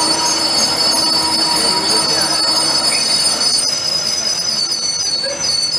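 Lathe cutting tool turning a spinning forged steel flange, giving a steady high-pitched metal squeal over the running machine.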